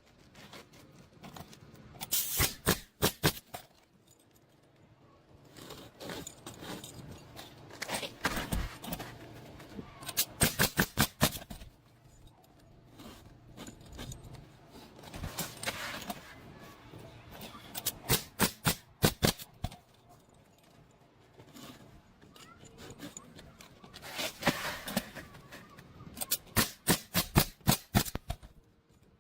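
Nailing: bursts of rapid sharp strikes, six to ten in quick succession, repeating roughly every eight seconds, with quieter handling noise between the bursts.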